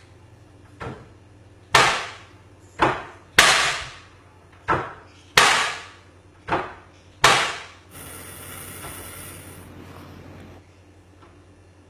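Wooden kitchen cabinet doors banging shut, eight sharp knocks at uneven intervals of about a second, each with a short echo. A steady hiss follows for a couple of seconds.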